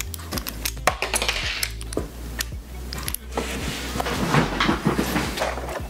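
Small gold-finished armor pieces of an action figure clicking and clinking as they are handled and snapped onto the figure, in a string of short sharp clicks with some rustling handling noise in the second half.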